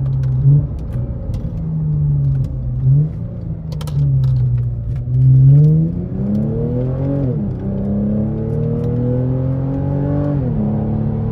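Lexus with an axle-back exhaust and muffler delete, heard from inside the cabin while driving under power. The engine note wavers up and down at first, then climbs steadily and drops sharply twice, about 7 and 10.5 seconds in, as it shifts up through the gears.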